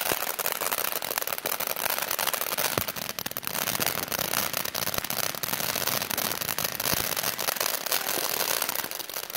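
Ground fountain firework spraying sparks: a steady hiss with continual fine crackling and a few sharper pops.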